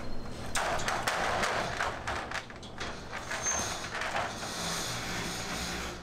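Rattling and clicking of a black wire dog crate's door latch being worked by hand, a dense run of metal clinks starting about half a second in.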